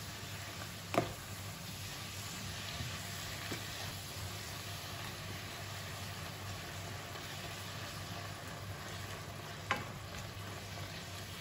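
Thinly sliced beef sizzling in a nonstick wok in its own released juices while a wooden spatula stirs it. Two sharp knocks, about a second in and near the end, are the spatula striking the pan.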